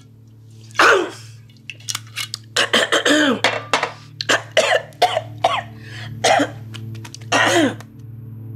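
A woman coughing and spluttering in a string of harsh fits after a swig straight from a liquor bottle, the strong drink catching in her throat. The bursts are bunched thickly about three and five seconds in, with a last one near the end, over a low steady drone.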